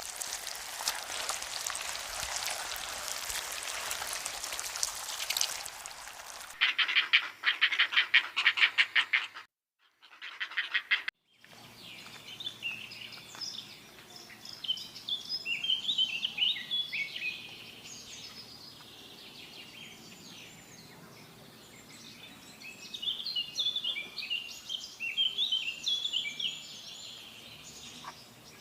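Birds chirping and twittering in quick short phrases, loudest in two spells, from about eleven seconds in. Before that come a steady hiss and a rapid pulsing call of about four strokes a second lasting some three seconds.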